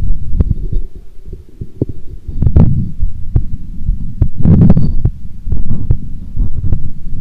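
A woman's heartbeat, heard as repeated low, muffled thumps, with two louder noisy swells a little past two and four seconds in.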